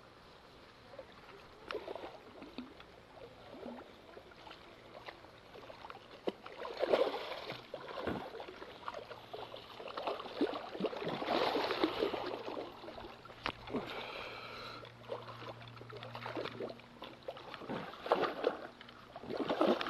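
Irregular splashing and sloshing of water, with occasional sharp knocks, louder in the middle and again near the end.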